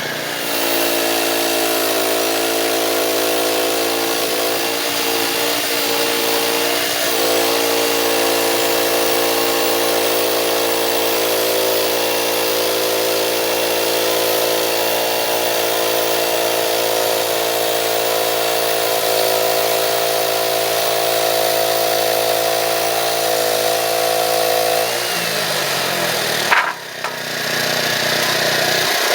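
Frontier OS27 portable band sawmill's gas engine running at high speed, driving the band blade through red oak. About 25 s in the revs slide down toward idle, and a sharp click follows a moment later.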